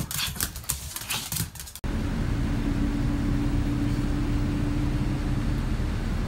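A small dog's claws clicking on a laminate floor, then a steady low rumble and hum inside the motorhome cabin, with a steady tone in it that fades out near the end.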